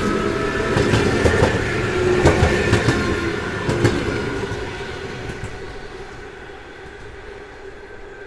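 A train running past on the rails, its wheels clicking sharply over rail joints, then fading away as it draws off from about halfway through.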